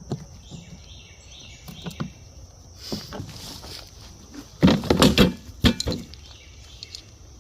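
Birds chirping faintly, then a short cluster of knocks and clatter about five seconds in.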